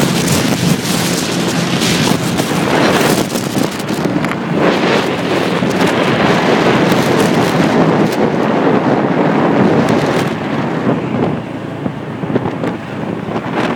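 Wind buffeting the microphone of a pillion passenger on a moving motorbike taxi, over the bike's engine and the surrounding city traffic. The wind noise eases somewhat about ten seconds in as the bike slows among the cars.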